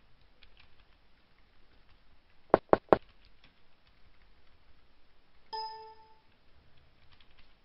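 Computer keyboard: three sharp key clicks in quick succession about two and a half seconds in, with a few fainter clicks around them. About five and a half seconds in comes a single short pitched ding that fades within half a second.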